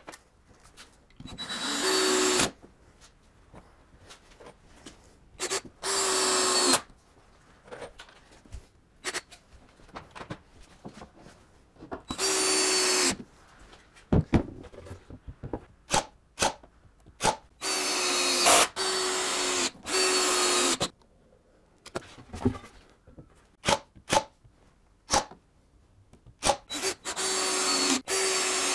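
Cordless drill driving wood screws through a skirt board into stair treads: about seven short runs of about a second each, the motor's pitch sagging as each screw pulls tight. Sharp clicks and knocks from handling the drill and the boards come between the runs.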